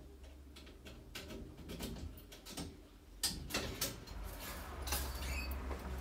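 Steampunk coffee machine ticking and crackling in small irregular clicks, with a low steady hum that comes in about four seconds in.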